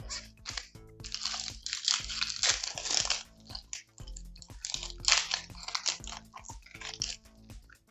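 Foil Pokémon booster pack wrapper being torn open and crinkled, in two spells of crackling, over quiet background music.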